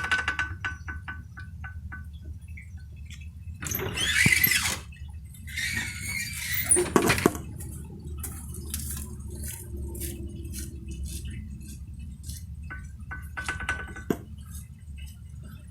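Scattered metallic clinks and two longer scraping, rustling bursts from engine parts being handled over a steady low hum, while a third-cylinder connecting-rod bearing with worn-out shells, the cause of the engine knock, is being inspected.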